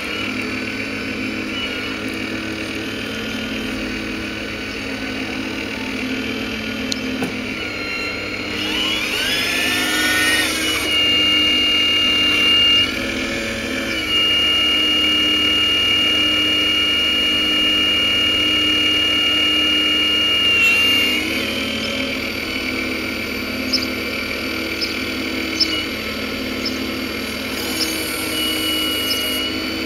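Radio-controlled Hitachi Zaxis 870 LCH scale hydraulic excavator working: its pump and drive motors give a steady high whine whose pitch steps as the boom and bucket functions change. The whine is louder and steadier through the middle stretch, and a few light ticks come near the end.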